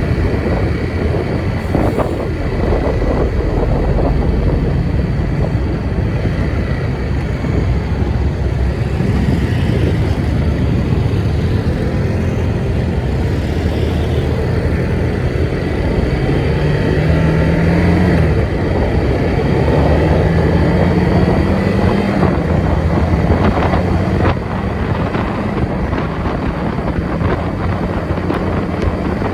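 Motor vehicle running: a loud, steady low rumble whose engine pitch rises twice near the middle.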